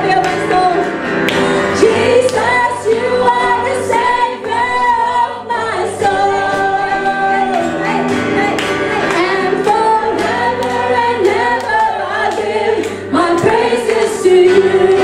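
Four women singing a worship song together into handheld microphones, their voices amplified through the hall's speakers, with sustained, sliding sung notes throughout.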